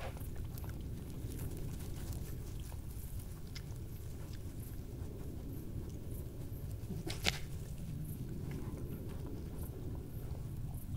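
Badgers feeding on scattered peanuts and scraps, with scattered small crunching clicks and one sharper snap about seven seconds in, over a steady low background rumble.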